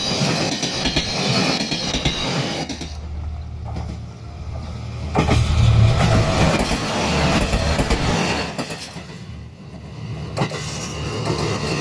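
A train running past, with a low rumble that is loudest around the middle and fades briefly near the end.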